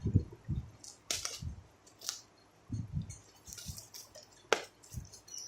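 A small box being opened by hand: scattered taps, knocks and sharp clicks as the packaging is handled, with a few quiet rustles.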